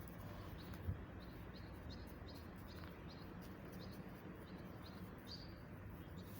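A small bird chirping faintly: short, high chirps repeated about every half second.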